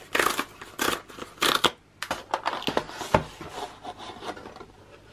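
The perforated cardboard tear strip of a corrugated mailer box being ripped off in several quick tearing pulls, followed by lighter scraping and rustling of the cardboard being handled.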